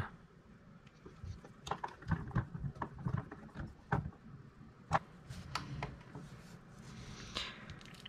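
Faint, irregular clicks and light scraping of a hand screwdriver turning small screws into a hard drive's mounting holes through a metal drive cage, with a sharper click about five seconds in.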